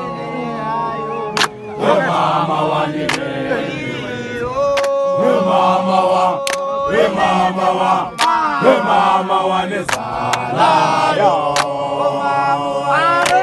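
Group of men singing a chant together, many voices holding long notes, with a few sharp hits now and then.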